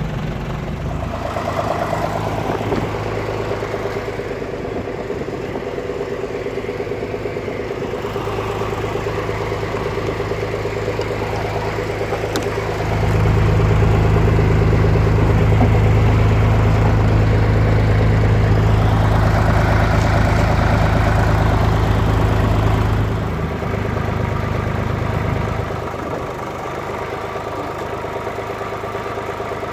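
A tractor's diesel engine idling steadily. About 13 seconds in it runs harder and louder for roughly ten seconds as the front loader works, then eases back to idle.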